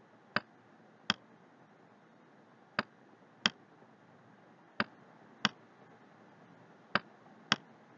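Sharp clicks of a computer mouse button, eight in four pairs about two-thirds of a second apart: the button pressed and released for each stroke of on-screen handwriting.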